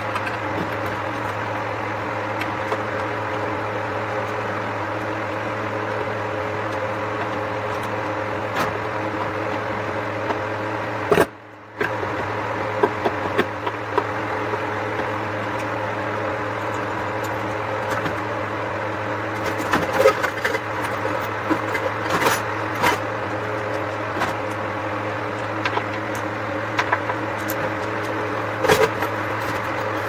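A steady mechanical hum with scattered light clicks and taps of handling, most of them in the second half, and a brief dropout a little over ten seconds in.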